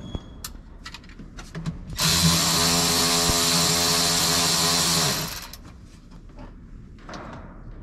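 Cordless electric ratchet running for about three seconds, starting about two seconds in, as it tightens a nut on a wiring terminal. A few light clicks of handling come before it.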